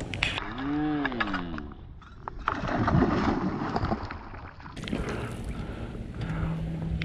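Water splashing and churning as a fish strikes at a surface lure, loudest about three seconds in. A short tone that rises and falls comes just before it, and a steady low hum near the end.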